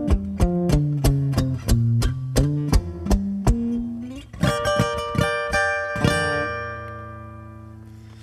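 Acoustic guitar strummed in a steady rhythm, then a final chord struck about six seconds in and left to ring and fade away, closing the song.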